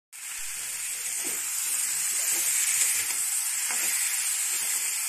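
Diced vegetables sizzling steadily in hot oil in a kadai, stirred with a metal spatula.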